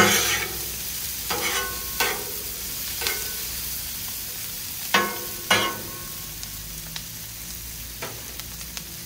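Sliced onions sizzling in butter on a Blackstone flat-top griddle over medium heat, with a metal spatula scraping and clanking on the griddle steel as they are stirred, about six sharp strikes in the first six seconds. After that only the steady sizzle with small pops.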